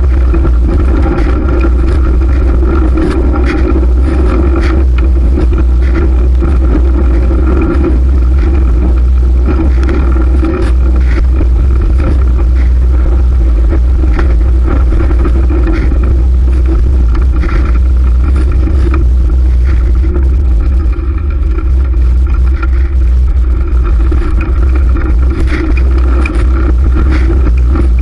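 Loud, steady wind rush on the microphone of a camera carried on a moving fixed-gear bicycle, with rolling road noise beneath it.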